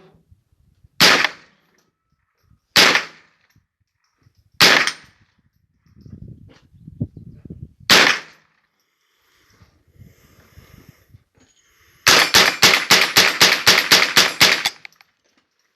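Gunshots: four single shots a couple of seconds apart, then a fast string of more than a dozen shots in under three seconds, about five a second. Quieter handling noise comes between them.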